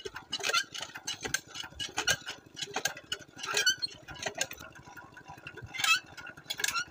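Irregular metallic clinks and knocks, several a second and uneven, as a small diesel water-pump set and its cast-iron hand pump are handled before starting. A faint steady hum lies underneath.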